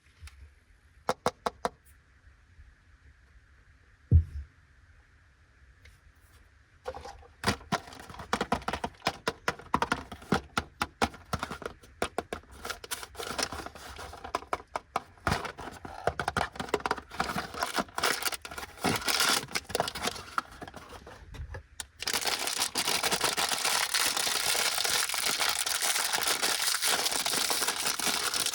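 Plastic snack packaging being handled and opened, a Fujiya Anpanman Korokoro Biskeccho biscuit pack. A few light clicks and one thud come first. From about seven seconds in there is quick crinkling and tearing of the wrapper, turning into a continuous louder rustle for the last several seconds.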